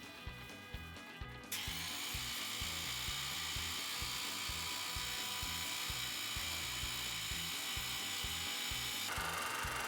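High-pressure washer switching on about a second and a half in and spraying a steady hissing jet of water onto an air conditioner's heat-exchanger fins, its motor whining, over background music.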